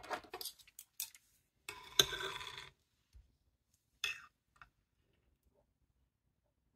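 Knife and fork cutting into a roasted stuffed pointed pepper on a slate board: metal cutlery clicking and scraping against the stone. Clicks come in the first second. A longer sawing scrape with a sharp click follows about two seconds in, and one more short scrape about four seconds in.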